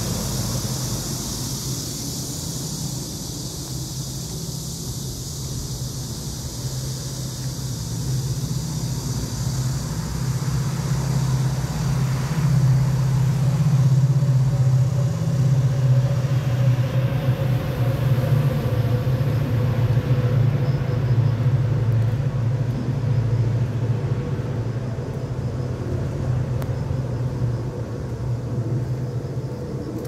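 Wind buffeting the phone's microphone: a steady low rumble that swells about halfway through.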